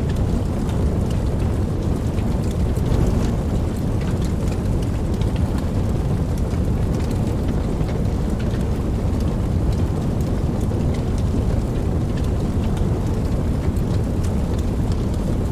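Steady rain with many fine drop ticks, over a continuous deep rumble of distant thunder.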